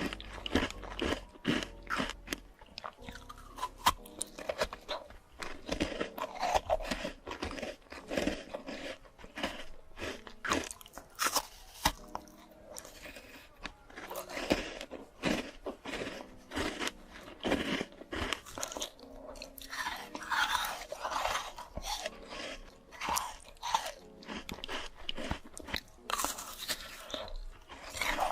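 A person biting into and chewing crisp fresh fruit, with many irregular crunches throughout.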